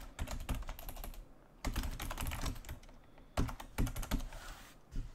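Computer keyboard being typed on in quick bursts of keystrokes with short pauses between them.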